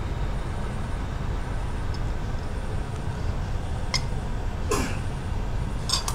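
Steady low background rumble, with a few light clicks of a spoon against the metal tray and plate, about four and six seconds in, and a short scrape just before five seconds.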